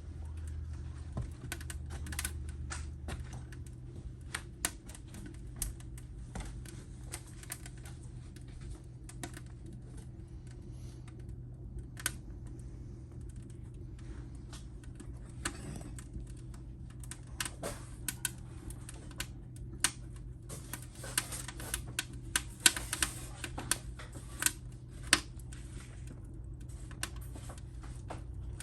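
Wood fire burning in a fireplace, crackling with irregular sharp pops and snaps that come thicker and louder about two-thirds of the way through.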